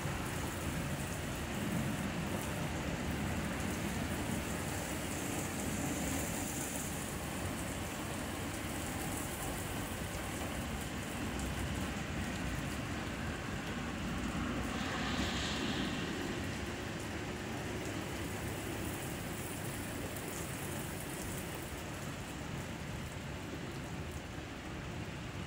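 Heavy rain pouring steadily onto wet pavement and a parking lot, a continuous hiss of rain on hard surfaces, with a brief louder hiss about midway.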